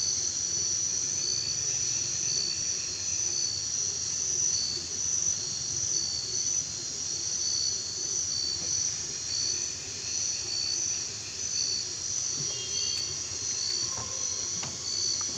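Evening chorus of forest insects, a steady high trilling that pulses in an even rhythm of roughly one to two beats a second. A few footsteps on wooden bridge planks come in near the end.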